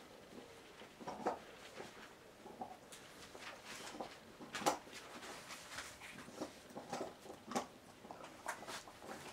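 Eighteen-day-old puppies making faint, short squeaks and whimpers, with scattered soft rustles and scratchy clicks as they shuffle about.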